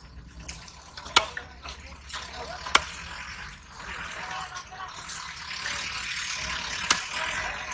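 Large fish-cutting knife chopping through rohu fish into a wooden log chopping block: three sharp chops at uneven intervals, a second or more apart, over steady background noise with distant voices.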